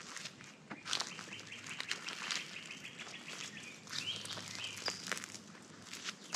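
Footsteps crunching through dry leaf litter on a woodland path, with birds calling; one high steady note lasts a couple of seconds, followed by a rising call about four seconds in.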